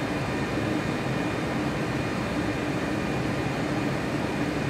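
Steady background hum and hiss of room tone, with no distinct handling sounds.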